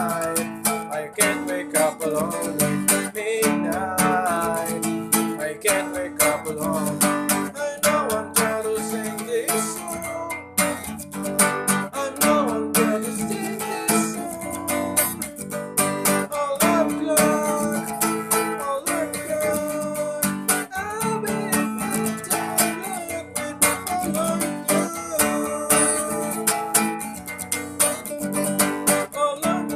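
Acoustic guitar strummed in a steady rhythm, full chords ringing out stroke after stroke.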